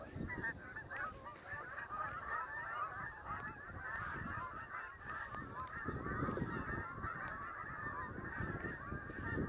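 A flock of geese honking, many overlapping calls in a continuous chorus.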